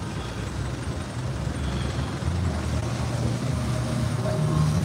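Road traffic: vehicle engines running in slow-moving traffic close by, a steady low rumble.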